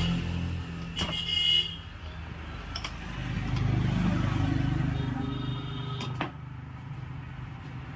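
Electric 26 mm hammer drill running, a motor hum with a fast, steady pulsing that grows louder in the middle. It is a test run with a freshly replaced front chuck lock. Sharp knocks come about a second in and again near six seconds.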